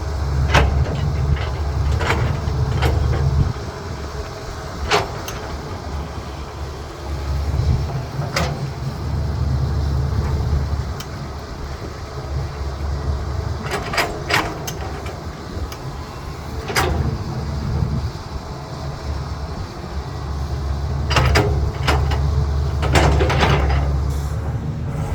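CAT 320B excavator's diesel engine working under load, its rumble rising and falling over and over as the machine digs and swings. Sharp knocks and clanks of rock in the bucket and truck bed come every few seconds, with clusters near the middle and near the end.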